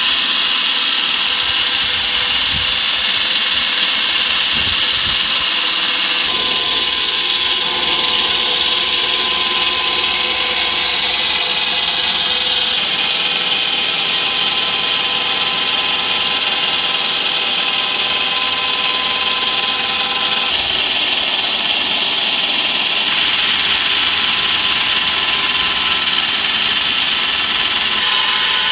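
Hydraulic wall saw running its large diamond blade through a reinforced-concrete foundation: a steady, loud, high cutting noise with a hum from the drive, its tone shifting slightly a few times.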